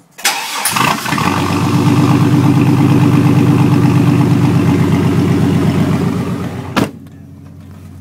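Cold start of a 1999 GMC Sierra's 4.3L V6 through a side-exit straight-pipe exhaust: the starter cranks briefly, the engine catches within a second and runs loud and steady at idle. About seven seconds in there is a sharp knock and the exhaust sound drops much fainter.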